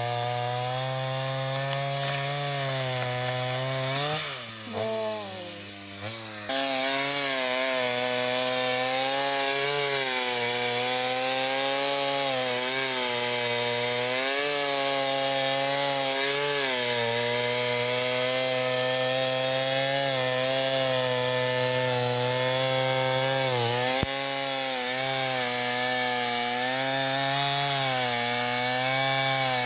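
Engine-driven power saw cutting through wood, its engine pitch wavering up and down under load. About four seconds in it drops in pitch and level, then picks back up a couple of seconds later. A single sharp click comes near the end.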